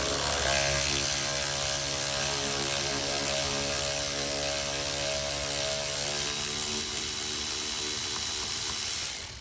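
Electric ratchet with an 8mm socket running steadily, backing out a bolt; the motor stops suddenly near the end.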